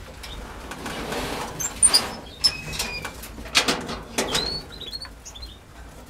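Canaries giving short, high chirps and calls, with a few loud scratchy, fluttering bursts of noise, the loudest about two seconds in and another about three and a half seconds in.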